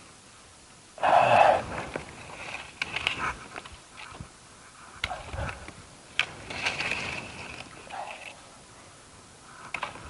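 Irregular rustling, scraping and sharp knocks of bamboo trunks and leafy stems being gathered and dragged by hand. The loudest rustle comes about a second in, and a few brief clicks and cracks follow.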